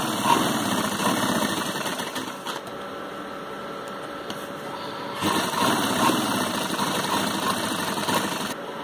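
Black domestic straight-stitch sewing machine stitching along a fabric collar strip, its needle and feed running steadily. It runs quieter for a few seconds in the middle, then picks up again.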